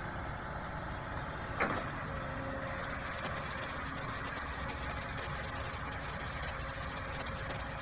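Case long-reach excavator's diesel engine running steadily as it lifts weed and debris out of a river, with a short falling squeal about one and a half seconds in.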